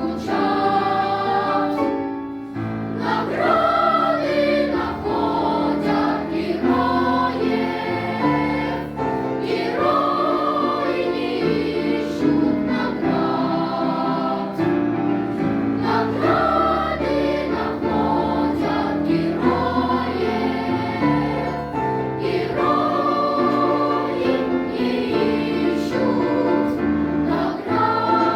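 A choir singing a song with instrumental accompaniment, sustained notes over a steady bass line.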